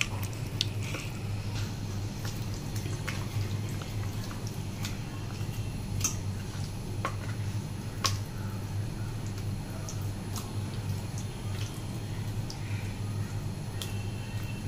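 Wet squelching and scattered light clicks of a hand rubbing thick masala paste into sea bass pieces in a steel bowl, over a steady low hum.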